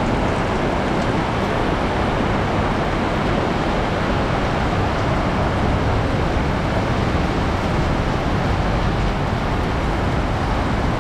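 Heavy rain pouring down steadily, a dense even hiss with no breaks.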